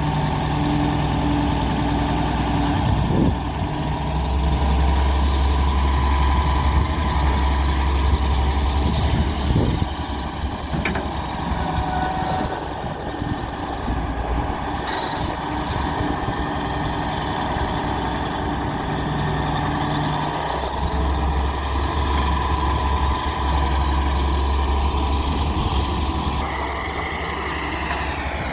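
Diesel engine of a Daewoo 170W3 wheeled excavator running under working load, its low drone growing heavier and easing off twice as the hydraulics work, with a steady high whine over it and a few short clanks.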